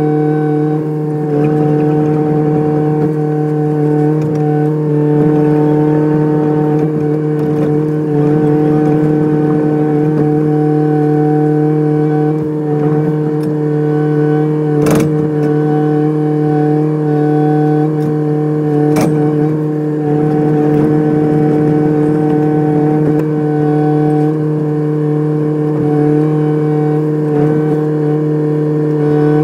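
Kubota excavator running at a steady engine speed, a constant hum with no revving and no breaker hammering. Two sharp clicks about halfway through and a few seconds later.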